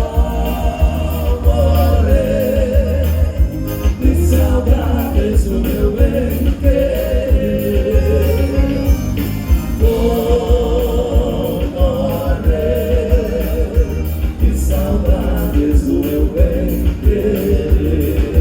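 Live gaúcho dance-band music: an accordion carries a wavering melody over a steady bass and drum beat.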